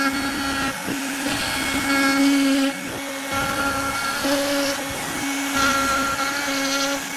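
Router spindle on a Onefinity CNC machine running with a steady high whine while its pointed V-bit carves grooves into a hardwood board. The level rises and falls every second or so as the bit moves into and out of the wood.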